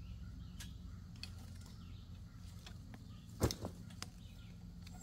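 Scattered light clicks and a sharp knock about three and a half seconds in, followed quickly by a smaller one, as a metal hunting saddle platform and climbing sticks are handled and strapped together, heard sped up. A low steady hum sits underneath.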